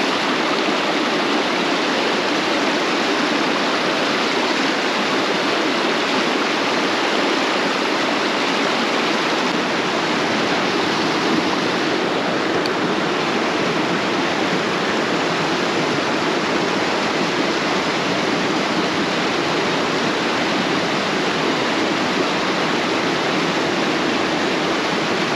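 Mountain creek rushing over rocks and small falls close by: a steady, unbroken rush of whitewater.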